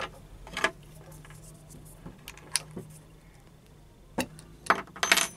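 Irregular small clicks and taps of metal and plastic parts being handled, with a quick cluster near the end, as the flexible shaft's inner cable is seated and tightened in a mini rotary tool's chuck. A faint steady low hum sits underneath.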